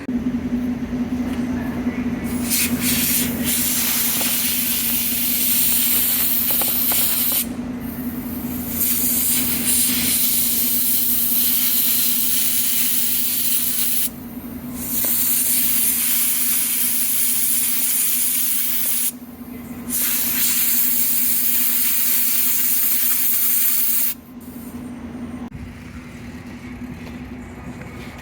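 Long hissing blasts, four in a row and each several seconds long with short breaks between them, from cleaning diesel-soaked spark plugs, over a steady low hum.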